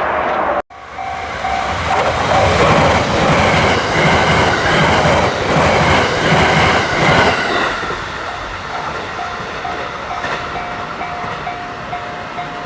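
JR West 683-8000 series six-car electric limited express train passing at speed, its wheels clattering rhythmically over rail joints for about five seconds before it fades. Under and after the pass, a level crossing's electronic warning bell rings in a steady, evenly repeated ding.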